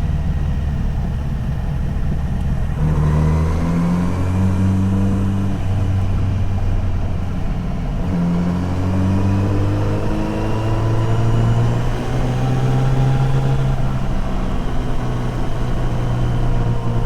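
Kawasaki Z900RS inline-four engine under way, its note rising sharply about three seconds in. About eight seconds in it dips and climbs again, then rises steadily.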